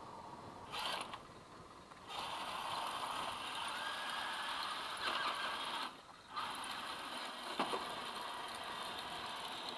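1:9 scale radio-controlled Abrams tank's electric drive motors and gearboxes whirring as it drives: a short burst about a second in, then running steadily, a brief stop a little past halfway, and running again.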